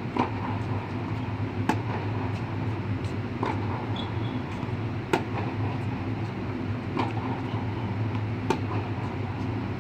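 Tennis rally: a ball struck by racquets back and forth, with a sharp pop every one and a half to two seconds and fainter bounces between them. A steady low hum lies underneath, from the air-supported dome's air handling.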